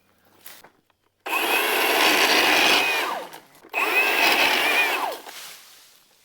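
Milwaukee M18 battery pole saw run in two bursts of a couple of seconds each, starting abruptly from silence, its motor pitch dropping as each burst stops.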